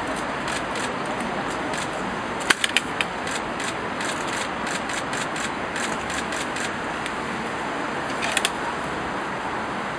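Steady outdoor background hiss with no voices. A few sharp clicks and crinkles come about two and a half seconds in and again near the end.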